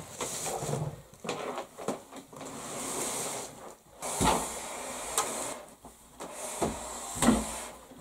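Wooden slatted bed frame being handled and pushed across the floor by hand: irregular knocks and scrapes of the wood, with two louder thumps about four and seven seconds in.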